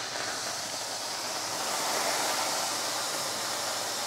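Pork shoulder steak sizzling in hot fat in a frying pan: a steady hiss that swells slightly about halfway through.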